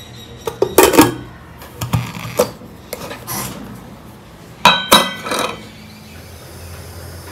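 Dishes and kitchen utensils knocking and clinking in several clusters: a loud set about a second in, smaller ones around two and three seconds, and another loud pair near five seconds with a brief ringing tone.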